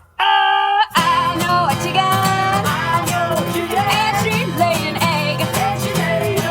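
Music: a song with plucked guitar and singing. The backing cuts out at the very start, a single held note sounds alone for under a second, then the full music comes back in.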